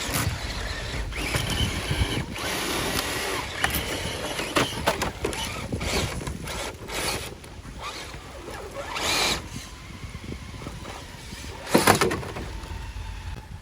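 Small electric RC crawler trucks driving over dirt and rock: motor and gear whine mixed with crunching and scraping of tyres, with a louder scrape near the end.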